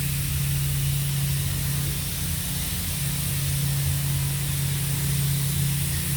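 Gerber Sabre 408 vacuum router table running idle after a cut: a steady low hum with a constant hiss of air.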